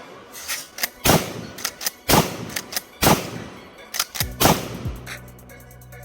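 Churchill 12-gauge shotgun firing Winchester AA shells: four loud shots about a second apart, with smaller cracks between them. Background music plays underneath, with steady low tones coming in near the end.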